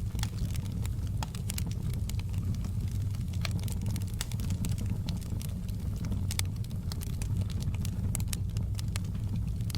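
Wood fire crackling in a fireplace: many small sharp pops at irregular intervals over a steady low rumble.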